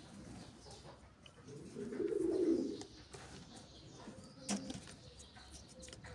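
A dove cooing, one low coo about two seconds in, the loudest sound here. A sharp click about four and a half seconds in, from hands handling the plastic bottle and drip set.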